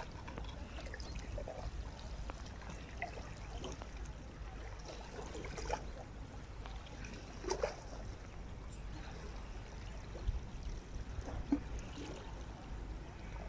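Water lapping and trickling close by, over a low steady rumble, with a few faint short splashes or knocks.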